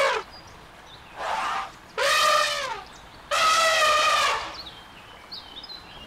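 Elephant trumpeting: a run of high, pitched calls. One ends just as the sound begins, a short soft one comes about a second in, then two loud ones follow at about two and three seconds, the last about a second long, each dropping in pitch as it ends.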